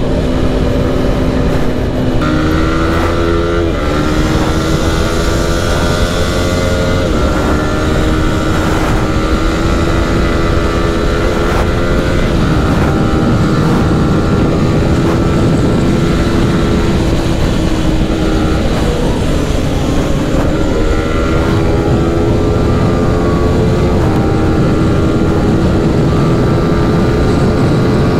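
Yamaha R15 V4's single-cylinder engine accelerating at highway speed, its pitch climbing slowly and dipping several times, under heavy wind rush.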